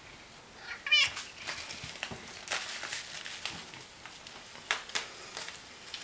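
A domestic cat gives one short, wavering meow about a second in, then scattered crinkles and rustles of a plastic catnip pouch follow as the cat paws and bites at it.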